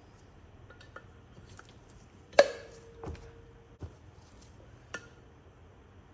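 Metal tools and parts clinking against an LS cylinder head while the valve spring compressor is bolted on. A few light clicks, and one loud ringing metal clank about two and a half seconds in.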